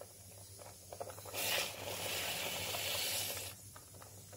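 Sugar poured from a bowl into a pot of simmering milk and vermicelli: a steady hiss lasting about two seconds that then stops, after a few faint taps.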